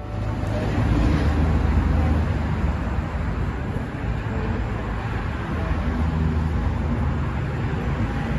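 Steady outdoor road-traffic noise: a continuous low rumble with hiss over it.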